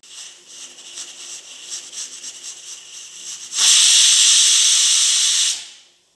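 Pressure cooker whistling: steam escapes from the weight valve with an uneven, sputtering hiss, then bursts into a loud steady whistle for about two seconds before fading. This is the cooker venting at full pressure, the whistle that is counted to time the cooking.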